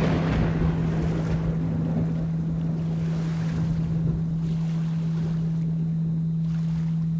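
A steady 165 Hz binaural-beat tone hums under recorded rain and low rolling thunder. The rain and thunder swell louder in the first second or so, then settle.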